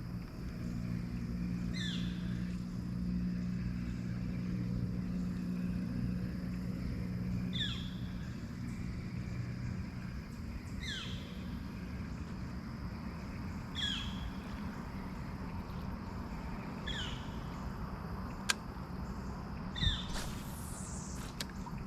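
A bird repeating a short descending call every two to three seconds. A steady low hum, like a distant motor, sits under the first third and fades out. A sharp click and a thump come near the end.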